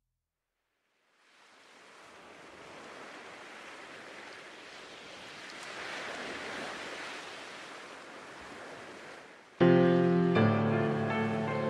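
Rushing surf of ocean waves that swells and then eases off. About nine and a half seconds in, music cuts in suddenly and loudly with sustained chords.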